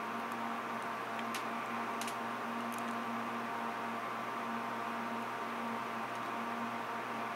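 Steady electrical hum and hiss of room tone, with a few faint short clicks in the first three seconds.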